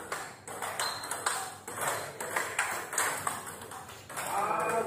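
Table tennis rally: the celluloid-type ball clicking sharply off the rubber paddles and the tabletop in quick, irregular succession.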